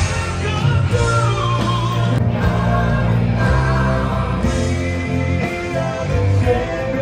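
Live rock band playing with a singer over it; the sung line glides down about a second in.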